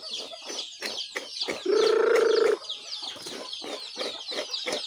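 Chicks peeping in a dense, continuous chorus of high falling chirps, with short clucks from hens. About two seconds in, a chicken gives one loud, level call lasting about a second.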